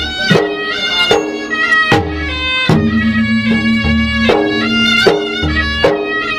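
Traditional Maros gendang adat music: two-headed gendang drums beat a steady rhythm under a reedy wind instrument that holds long, nasal, pitched notes.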